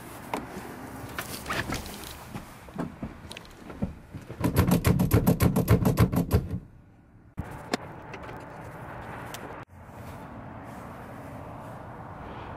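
Honda Prelude's manual gear shifter rattled quickly back and forth by hand: a loud run of about ten knocks a second lasting about two seconds, then stopping.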